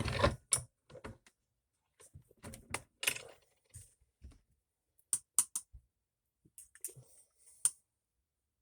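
Scattered small metallic clicks and taps from a pocket knife and hand tools being handled at a bench vise, some in quick runs of two or three.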